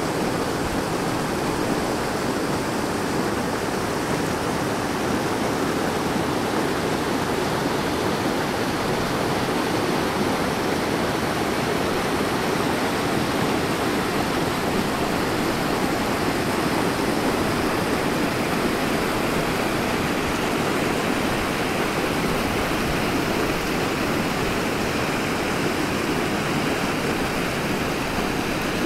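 Glacier-fed alpine stream rushing over rocks, a steady, unbroken rush of water. It is running with midday glacier and snow meltwater.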